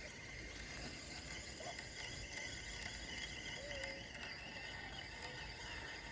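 Steady chorus of insects: a continuous high-pitched trilling, with a low rumble beneath it.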